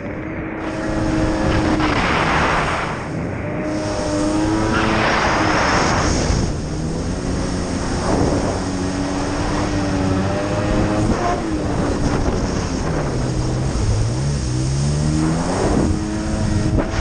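2000 Sea-Doo GS personal watercraft's two-stroke twin engine running under way, its pitch rising and falling with the throttle. It drops and climbs back up near the end, over the rush of wind and spray.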